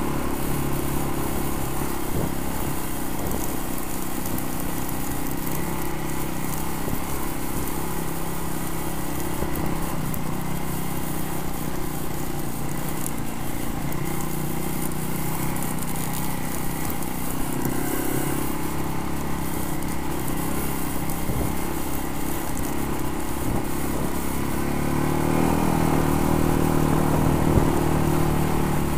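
ATV engine running while riding, its pitch rising and falling with the throttle, revving up louder a few seconds before the end.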